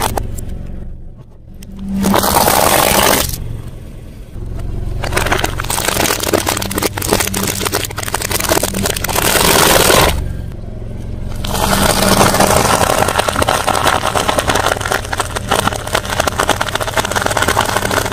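Car tyre rolling slowly over objects on concrete, squashing liquid-filled balloons and then soft fruit with dense crackling and scraping, in three separate passes, over the low steady hum of the car's engine.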